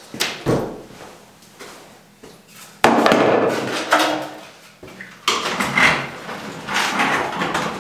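Knocks and rustling as the sanding belt on a belt grinder is changed for a coarser one pulled from a wall rack, with no motor running. A sharp knock about three seconds in is followed by scraping, then another clatter a little after five seconds.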